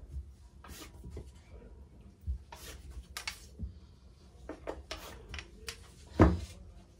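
Scattered scratchy strokes and rustles of a ruler and tape measure being slid and handled over fabric on a cutting table while the cloth is marked, with a single louder thump about six seconds in as the long ruler is set down.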